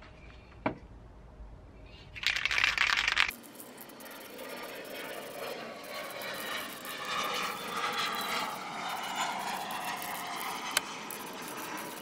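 Aerosol spray paint can releasing a burst of about a second, about two seconds in, with a sharp click just before. A quieter, wavering rush of noise follows for the rest.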